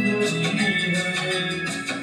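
Instrumental passage of a Hindi film song's accompaniment: held melody notes over a steady rhythmic beat, with no singing.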